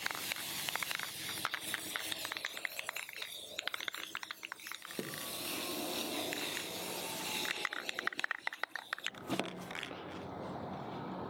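Aerosol spray paint can shaken, its mixing ball rattling in quick clicks, then sprayed in two steady hissing passes with more rattling between them.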